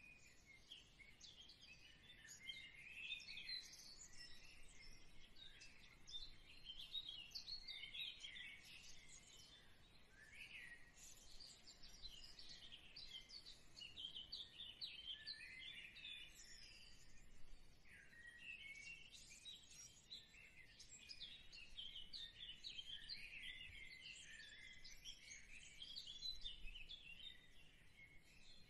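Faint, continuous chorus of many small birds chirping and twittering, with short quick notes overlapping throughout.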